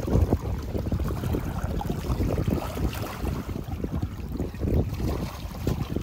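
Wind buffeting the microphone as an irregular low rumble, over lake water lapping against shoreline rocks.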